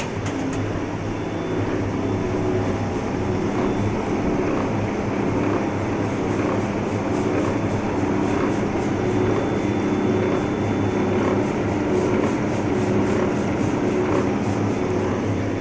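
Large Cincinnati Milacron lathe running: a steady mechanical drone from the spindle drive and gearbox, with a faintly pulsing hum.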